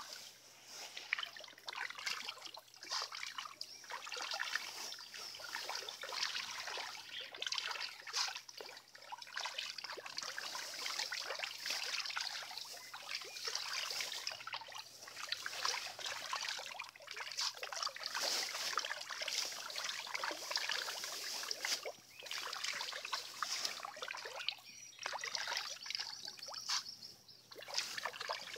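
Shoal of tambaqui feeding at the surface of a fish pond: a continuous, irregular patter of many small splashes as the fish churn the water.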